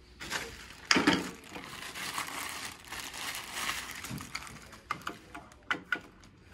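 A knock about a second in, then plastic wrapping crinkling as a caster wheel is unwrapped. Near the end come a few sharp clicks as the caster's stem is pushed into the socket of a hospital bed leg.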